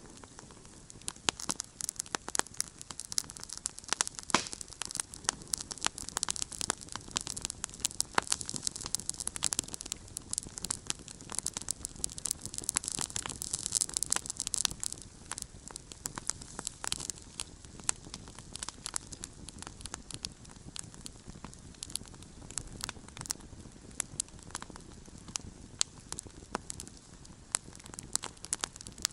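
Wood campfire burning, with frequent sharp pops and crackles over a steady hiss of flame.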